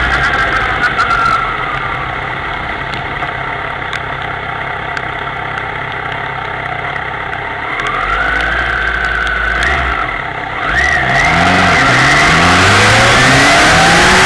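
Kawasaki ZX-10R's inline-four engine falling in pitch as the bike slows, then running low and steady. In the last few seconds it accelerates again, the pitch climbing in steps as it shifts up through the gears, with a rising hiss of wind and spray off the wet road.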